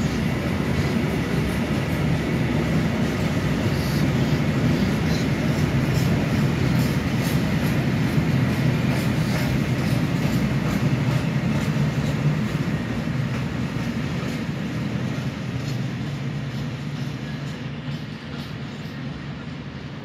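Empty Eas open freight wagons rolling past, a steady rumble with many clicks of wheels over rail joints, fading from about twelve seconds in as the train draws away.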